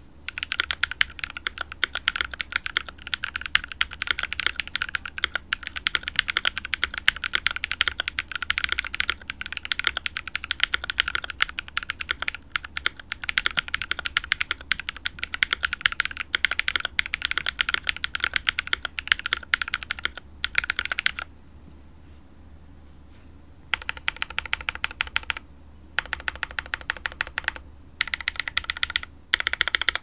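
Typing on a custom mechanical keyboard: a KBD67 V3 aluminium-case board with lubed Strawberry Milk tactile switches on an FR4 plate, no case foam, and GMK keycaps, giving a deeper, thocky keystroke sound. Fast, steady typing runs for about twenty seconds, stops for a couple of seconds, then comes back in shorter bursts.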